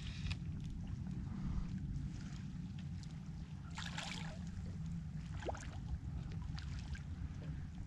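Wind rumbling steadily on the microphone, with a few brief splashes of water around the middle.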